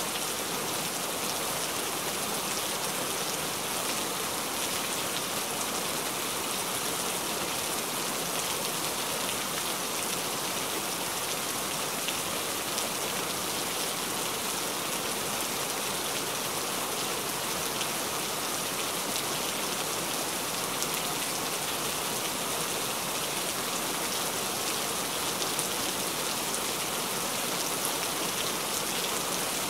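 Steady rain falling: a dense, even hiss of drops with faint individual ticks.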